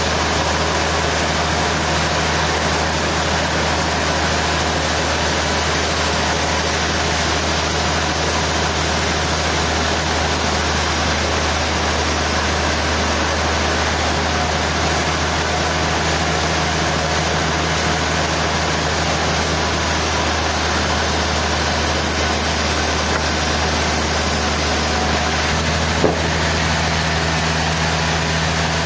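Sawmill machinery running steadily with a constant low hum and hiss, with one sharp click about 26 seconds in.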